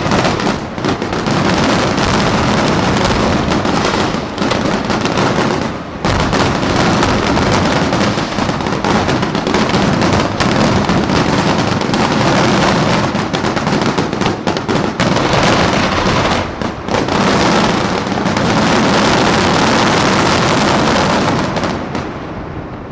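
Fireworks display in a dense, unbroken barrage of bursts, with a few brief lulls. It fades away near the end.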